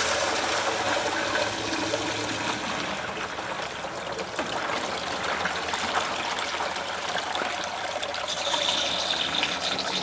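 Water draining out through the bottom outlet of a Neffco centrifuge bowl once its drain plug is pulled: a steady rush of water, loudest at the start. A low steady hum runs underneath.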